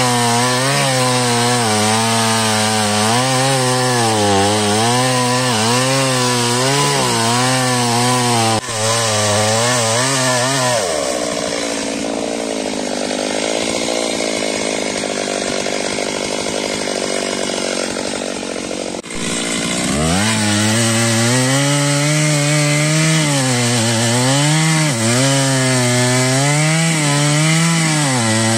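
Two-stroke chainsaw cutting into a large tree trunk, its engine note rising and dipping as the chain bites and bogs under load. For several seconds in the middle the sound turns thinner and hissier. The full cutting note then returns and ends near the end.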